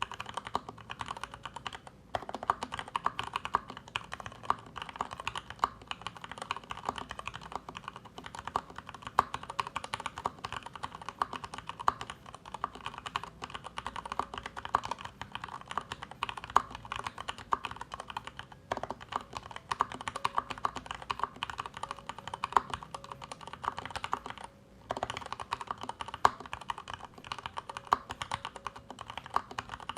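Typing on a Leopold FC650MDS PD mechanical keyboard with Cherry MX Speed Silver linear switches, PBT double-shot keycaps and a built-in sound-absorbing pad: a steady, quick run of keystroke clacks, broken by short pauses about two seconds in, a little past the middle, and about five seconds from the end.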